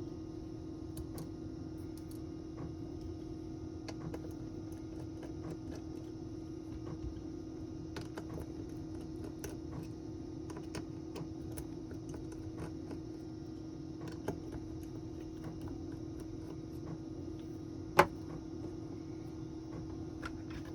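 Light, scattered clicks and taps of small hand tools and smartphone parts being handled during the repair, over a steady hum. One sharper click about 18 seconds in.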